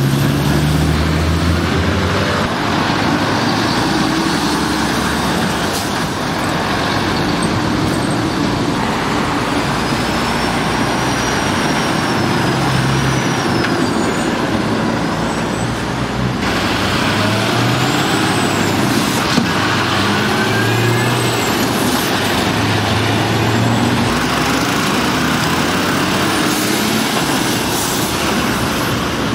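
Diesel engines of heavy lorries running as articulated trucks pull slowly round a roundabout one after another, over steady road traffic noise. A few faint high-pitched squeals rise and fall in the middle.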